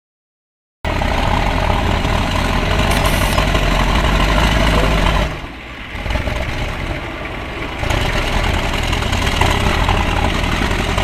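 Heavy diesel engine running loudly, cutting in abruptly about a second in. It drops quieter for a couple of seconds around the middle, then runs loud again.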